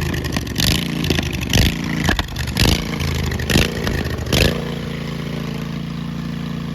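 Old riding lawnmower engine running with no muffler, loud and open-sounding. It surges in short bursts about once a second, then settles to a steady idle about four and a half seconds in.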